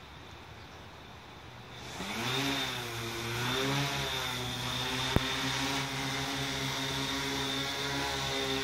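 Quadcopter drone's electric motors and propellers spinning up about two seconds in, the pitch rising and wavering, then a steady buzzing hum as the drone lifts off and hovers under load, carrying a tethered ghost prop. A single sharp click a little past the middle.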